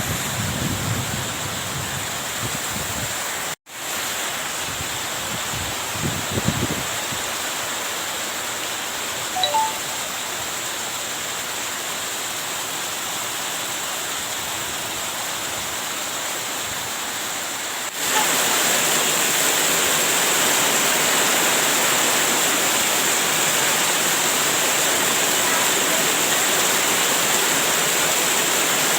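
Heavy rain pouring down steadily in a windy storm, with a few low rumbles in the first seven seconds. The sound briefly cuts out about three and a half seconds in. The downpour gets louder about eighteen seconds in.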